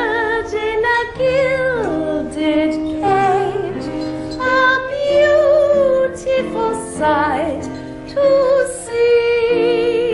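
A woman singing a slow song with a wide vibrato over held instrumental accompaniment.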